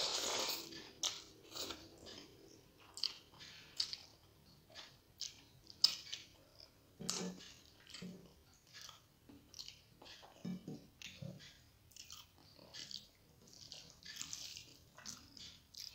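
Close-miked chewing of rice and egg curry eaten by hand: irregular wet mouth clicks and lip smacks, with one sharper smack about six seconds in.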